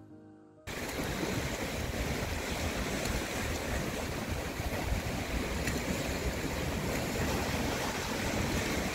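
Background music cuts off less than a second in, giving way to sea surf washing against a rocky shore, a steady rushing noise with wind on the microphone.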